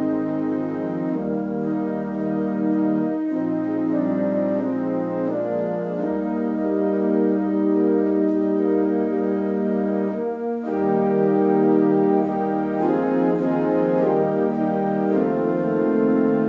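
Organ music: slow, sustained chords that change every second or two, with a brief break about ten seconds in.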